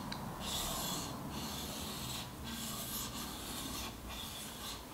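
A single-bevel Japanese kitchen knife being ground on a water whetstone, its bevel laid flat on the stone: a steady scraping of steel on stone in back-and-forth strokes of about a second each, with a brief break at every turn.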